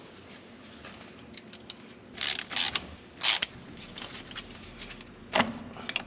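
Hands and tools working the bolted axle-disconnect actuator housing loose from the Jeep's front axle: low handling noise with two short metal scrapes about two and three seconds in, and a sharp click near the end.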